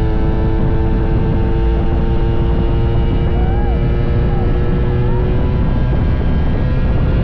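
Honda Dash 125 two-stroke single-cylinder motorcycle engine running at a steady speed while riding, with heavy wind rumble on the microphone.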